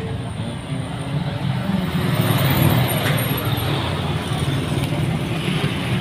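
Motor vehicle traffic running close by, a low steady engine rumble that grows louder about two seconds in and then eases off.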